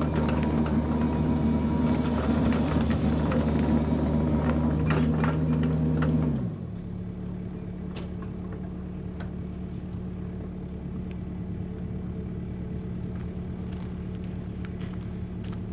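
Kubota KX71-3 mini excavator's diesel engine running hard under load, with scattered cracks and clatter, then throttling down to a steady idle about six seconds in.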